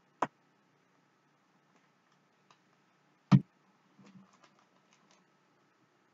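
Hands handling trading cards and boxes on a tabletop: a sharp click just after the start, a heavier knock a little over three seconds in, then a second of light clicks and rustles.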